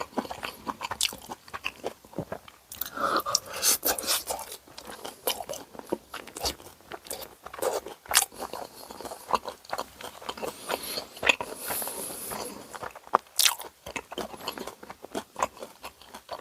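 A person eating close to the microphone: irregular crunchy bites and chewing, fitting crisp karaage fried chicken and ramen.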